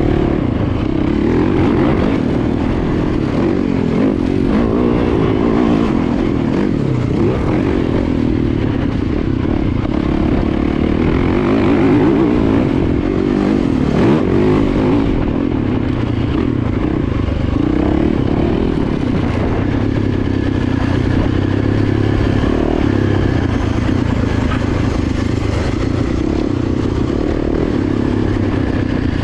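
Yamaha dirt bike engine running under load on a trail ride, its revs rising and falling with the throttle. A single sharp knock about fourteen seconds in.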